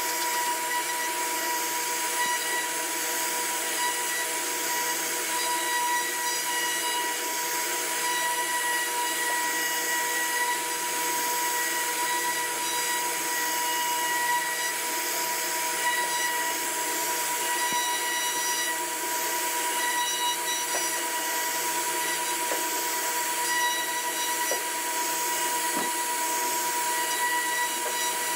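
CNC router spindle running steadily with a constant high whine over a hiss of cutting noise as it carves a wooden door panel.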